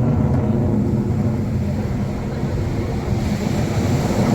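Military jet aircraft flying past with a steady, deep rumble. A hiss grows stronger near the end as a jet comes closer.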